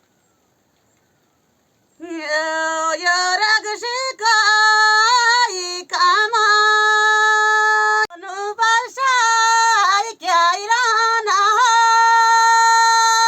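After about two seconds of silence, a single high voice sings unaccompanied: a melody with quick ornamented turns and several long held notes.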